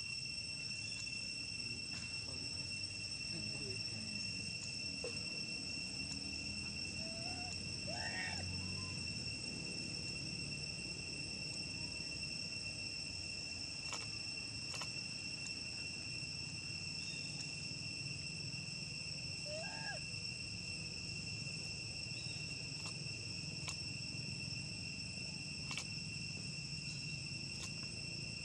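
Steady high-pitched drone of forest insects, two unbroken tones held throughout. A couple of short squeaky calls stand out above it, about eight seconds and about twenty seconds in.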